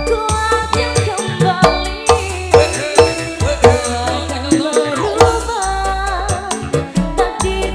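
Live band music: a wavering sung or played melody over steady, fast hand-drum percussion and a pulsing bass.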